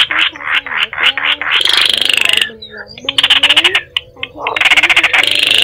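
Baillon's crake calls: dry, frog-like rattling trills in repeated bursts of about a second each, over a lower gliding line of mixed-in music.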